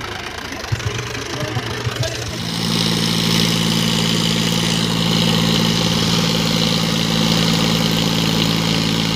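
Diesel tractor engine idling, then revved up about two and a half seconds in and held at a steady high speed, working under load to tow a tractor stuck in deep mud.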